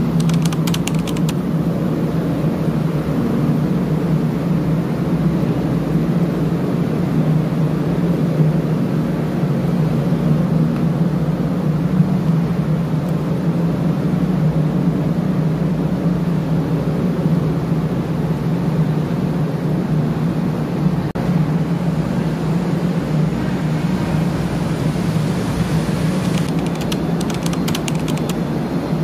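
Steady low drone of diesel engines and machinery in a car ferry's enclosed vehicle deck, unchanging throughout, with a few light clicks near the start and again near the end.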